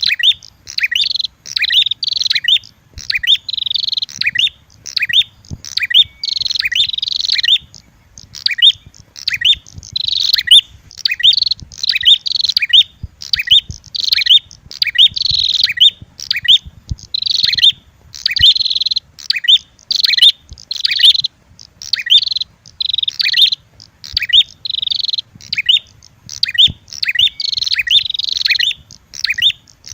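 Lure recording of red-headed prenjak calls mixed with female prenjak fighting calls: small songbirds giving rapid, high-pitched chirping phrases, about one burst a second, without pause.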